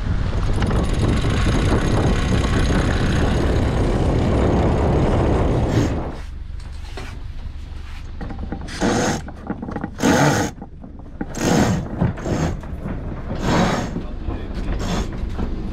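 Wind buffeting the microphone on a sailing yacht's deck. About six seconds in this gives way to a series of short, irregular rasps as a sheet is hauled in by hand through the cockpit fittings.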